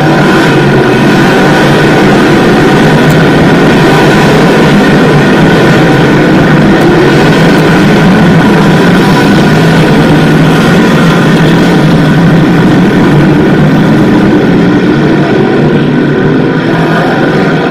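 Small-block V8 engines of a pack of dirt-track small block modifieds racing at speed, several cars overlapping in a loud, continuous engine noise that thins a little near the end as the pack clears the turn.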